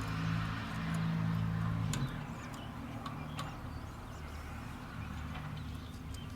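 A few light metallic clicks and taps of a wrench working on engine-bay bolts, over a steady low hum that changes pitch about two seconds in.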